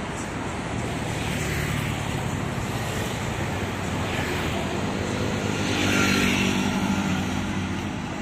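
Street traffic: vehicles passing on the road, the noise swelling as each goes by. The loudest pass, about six seconds in, carries a low engine hum.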